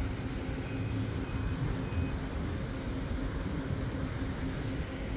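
A vehicle engine idling steadily nearby: a low rumble with a faint pulsing hum.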